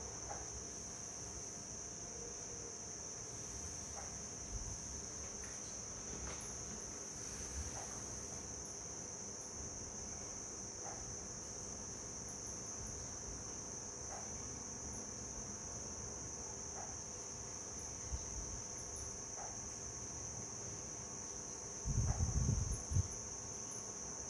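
Steady high-pitched insect chorus with a continuous trill, with a few faint clicks scattered through it. A brief low rumble comes near the end.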